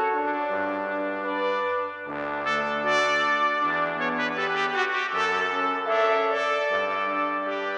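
Background music: an instrumental passage of sustained, brass-like chords over a bass line, with the chords changing about every second and a half.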